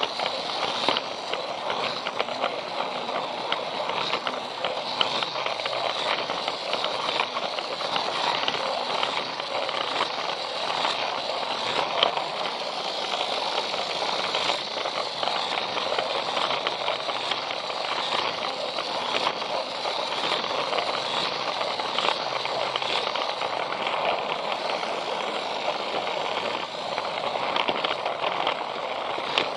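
Battery-powered Plarail toy train running along plastic track, heard up close from on board: a steady rattling clatter of its wheels and gearbox, full of small clicks.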